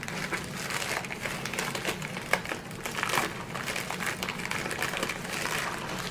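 Packaging crinkling and rustling continuously with small crackles as a diamond painting canvas package is handled and unwrapped.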